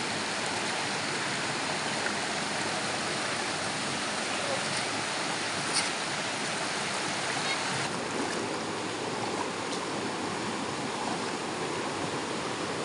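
Shallow rocky river running over stones: a steady wash of rushing water, with one brief click about six seconds in.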